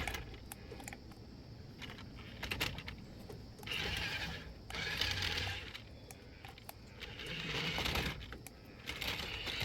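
Small electric toy motor of a remote-control dinosaur whirring in three short bursts of about a second each, with scattered plastic clicks and rattles.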